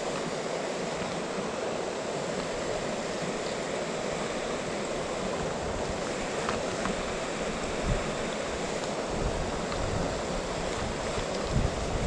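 Steady rush of a mountain stream's flowing water, with wind buffeting the microphone from about nine seconds in.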